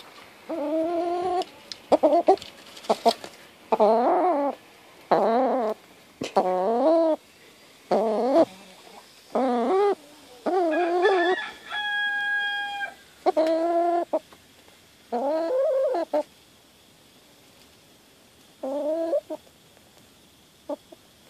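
Hen calling: a run of drawn-out calls with a wavering pitch, about one a second for some fifteen seconds, then a pause and one more call near the end.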